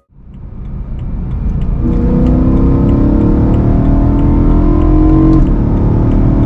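BMW M3 E92's V8 engine pulling under acceleration. It swells up over the first couple of seconds and its note climbs slowly. The pitch drops a little about five seconds in, then holds steady.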